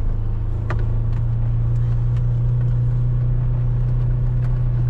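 Vehicle engine running with a steady low drone while driving slowly, heard from inside the vehicle, with a light knock under a second in and a few fainter clicks.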